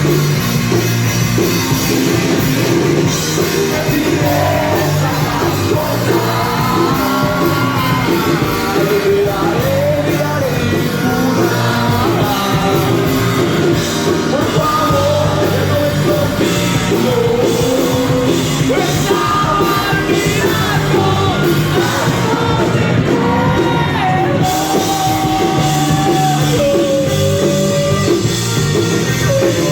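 Rock band playing live: a singer's melody over a loud, full backing of the band.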